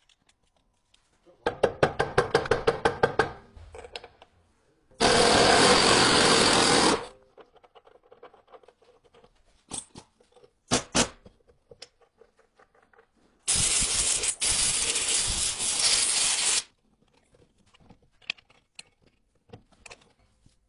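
Hand work on a car's front brake and suspension: a quick run of about a dozen sharp metal clicks, then two spells of steady hiss about two and three seconds long, with scattered taps and scrapes between them.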